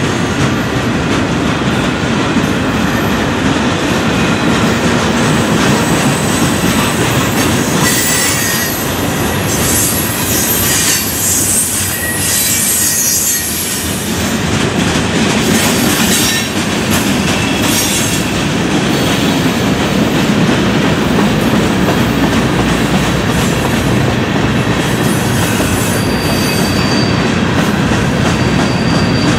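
Freight train cars (tank cars, covered hoppers and gondolas) rolling steadily past at trackside: the rumble and clatter of steel wheels on rail joints. High wheel squeal cuts through at times, strongest about a third of the way in.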